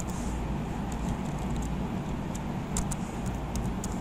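Computer keyboard being typed on: scattered light key clicks, more of them in the second half, over a steady low background rumble.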